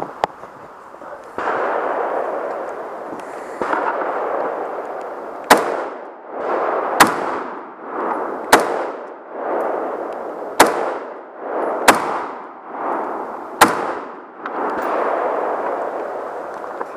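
Six rifle shots fired one after another at a steady pace, one every one and a half to two seconds, each sharp and loud, as a shooter works through a timed stage. A steady rushing noise fills the stretches between and around the shots.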